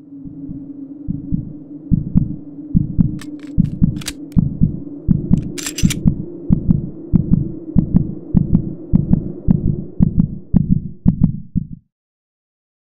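Logo intro sound effect: a steady low drone under deep pulses about twice a second, like a heartbeat, with a few sharp ticks and a short hiss around the middle. It cuts off suddenly near the end.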